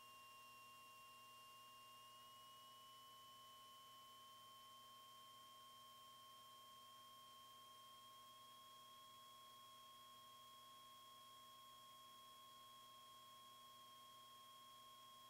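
Near silence: only a faint steady electrical whine made of a few thin tones, the highest drifting slightly upward in pitch.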